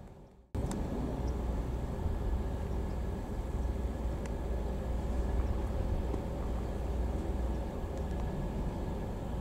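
Steady low rumble of an idling diesel railcar engine with a faint steady whine over it, cutting in abruptly about half a second in.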